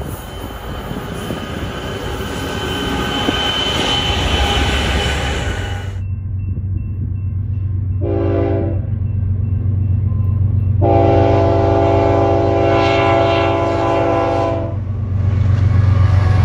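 Union Pacific freight train's diesel locomotives coming up the line with a steady rumble. Then BNSF diesel locomotives approaching a grade crossing sound their multi-chime air horn: a short blast, then a long blast of about four seconds, over the deep drone of their engines, which grows louder as they pass near the end.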